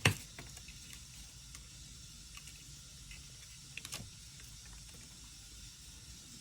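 Clicks and taps of soldering tools being handled on a workbench: one sharp click at the start, then a few faint ticks and a short cluster of clicks about four seconds in, over a steady low hiss.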